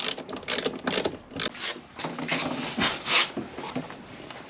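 A hand tool tightening the clamp nut on a car battery terminal: a run of short, irregular clicking and scraping strokes that trails off near the end.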